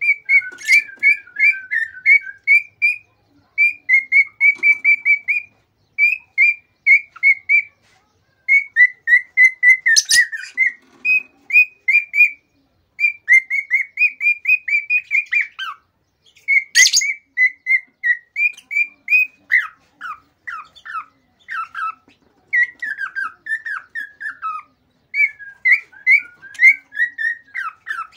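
Excited singing of a male cockatiel: fast runs of short whistled notes, several a second, in phrases broken by brief pauses. Two sharp clicks cut in, about ten and seventeen seconds in.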